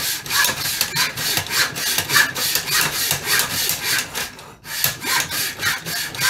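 Hand saw cutting through a wooden shotgun stock in rapid back-and-forth strokes, about four or five a second, with a brief pause a little past four seconds in.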